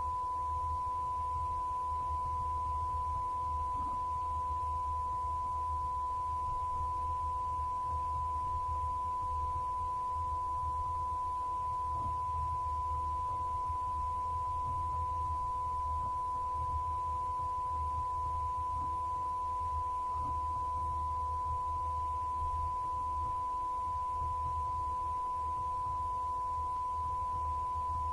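A steady high-pitched sine test tone held unbroken, with a fainter lower tone and a low hum beneath it.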